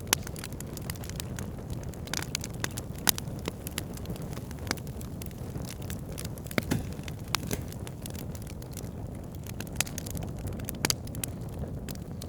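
Wood campfire burning: a steady low rumble of the flames with frequent irregular crackles and sharp pops of the burning wood, a few of them loud.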